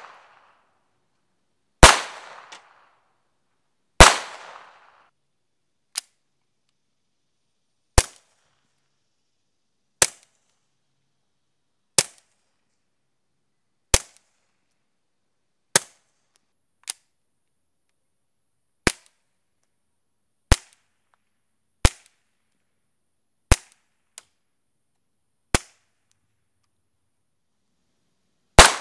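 Ruger 22/45 Lite .22 LR pistol fired with CCI Standard Velocity ammunition: two loud unsuppressed shots that echo, then about a dozen much quieter, short shots roughly every two seconds with the CGS Hydra stainless suppressor fitted. Near the end comes one loud, echoing unsuppressed shot from a Colt Rail Gun .22 pistol.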